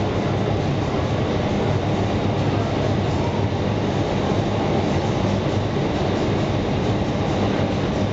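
Indoor skydiving vertical wind tunnel running at flying speed: a steady, loud rush of air with a low hum from the tunnel's fans, unchanging throughout.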